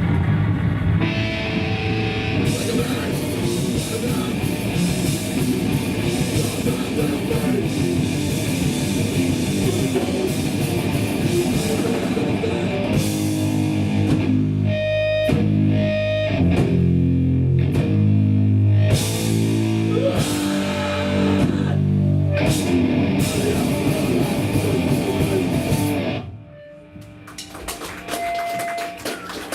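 Hardcore punk band playing live: distorted electric guitars, bass and drum kit at full volume, with a stop-start stretch of separate chord hits around the middle. The song cuts off about 26 seconds in, leaving only quieter, lingering guitar tones.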